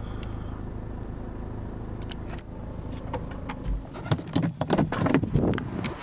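Range Rover Evoque engine idling in Park, heard from inside the cabin as a steady low hum. The deepest part of the hum drops away with a thump about two-thirds of the way in, followed by a jumble of clicks, knocks and rustling from handling inside the car.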